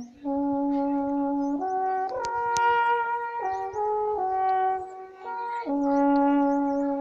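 A brass instrument plays a slow phrase of long held notes. It starts on a low note, steps up through several higher notes about two seconds in, and comes back down to the opening low note, which it holds near the end.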